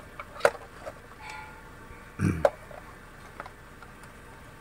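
Handling noise from a portable 12 V tyre inflator: sharp plastic clicks as the air hose and power cord are pulled out of the compartment in its casing, and a duller knock about two seconds in. The compressor itself is not running.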